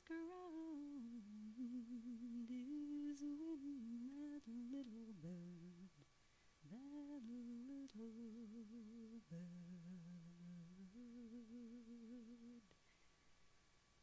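A single voice humming a slow, wordless melody with a steady vibrato, unaccompanied, with short pauses between phrases; it stops a little before the end.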